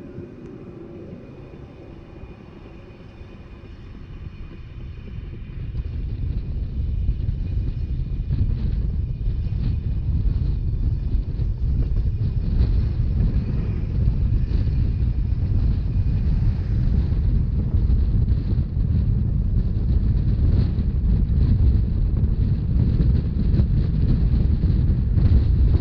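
Rhaetian Railway narrow-gauge train running along the track: a low rumble of wheels on rails mixed with wind on the microphone. It grows louder about five seconds in, then holds steady.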